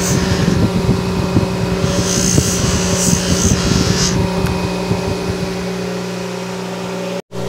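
Bench buffer motor running with a steady hum while a motorcycle wheel hub is held against its buffing wheel, which is charged with black emery compound, giving an uneven rubbing hiss. About five seconds in the rubbing stops and only the motor hum remains. The sound drops out for an instant near the end.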